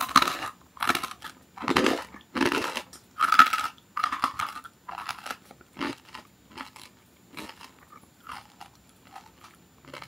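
Crunching chews of thin, crisp scorched-rice crackers (nureungji) being eaten, about one crunch a second. The crunches are loud for the first few seconds, then grow fainter as the bite is chewed down.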